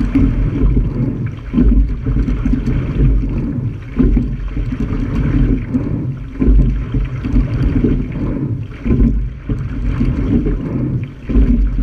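Sculling shell moving through the water under oars: water rushing along the hull with wind buffeting the microphone, the level swelling and easing every second or two.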